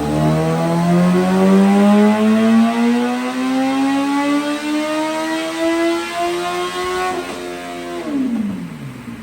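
Kawasaki ZX14R's inline-four with a Vykon aftermarket exhaust revving hard: one long smooth climb in pitch in a single gear toward the top of the rev range, then the throttle is shut at about seven seconds and the revs fall away quickly.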